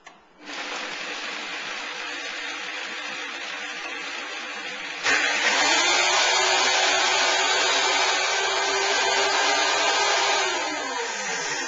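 Countertop blender running, blending pine nuts, coconut water and lemon juice into a creamy sauce. It starts about half a second in, jumps to a higher, louder speed about five seconds in, then winds down near the end with a falling motor hum.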